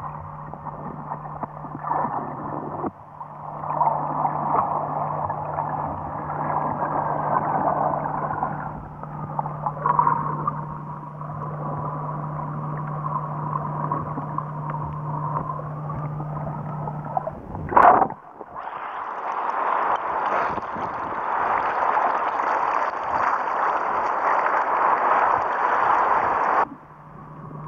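Underwater water noise, a steady wash with a low hum beneath it and a faint tone that slowly falls and then rises. About two-thirds of the way through there is a sharp click, after which the wash turns brighter and stops abruptly near the end.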